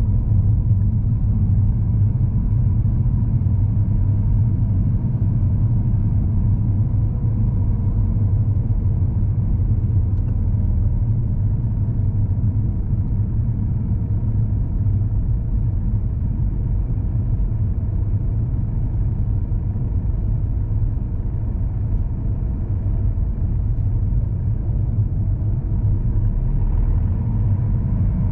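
Car engine running while driving, heard from inside the cabin: a steady low rumble.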